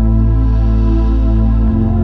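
Ambient chillout music: sustained synthesizer pads over a deep bass, the bass note changing about a second and a half in.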